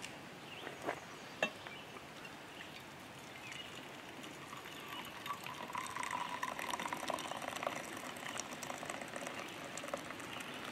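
Hot coffee poured from a black campfire coffee pot into an enamel mug: a thin trickling pour that swells from about five seconds in. A few light knocks sound in the first two seconds.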